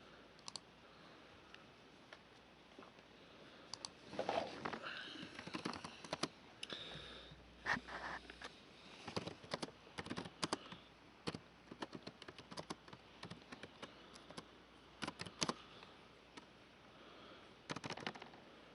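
Irregular sharp clicks of buttons being pressed over and over, as when flipping through channels, with short quiet gaps between runs of clicks.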